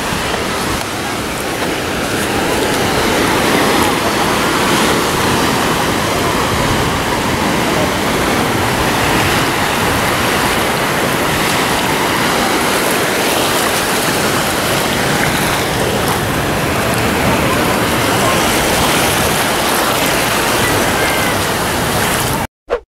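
Shallow sea surf rushing and splashing around feet wading in it, a steady wash of water noise that cuts off suddenly near the end.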